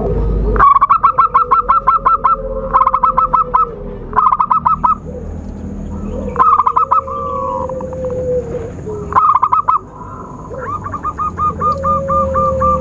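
Zebra doves (perkutut) cooing: bursts of rapid staccato notes, repeated half a dozen times, with a drawn-out lower note that falls away at its end.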